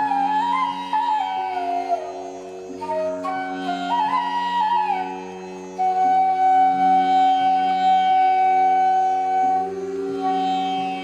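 Background music: a gliding, ornamented melody over a steady drone, settling into one long held note about six seconds in.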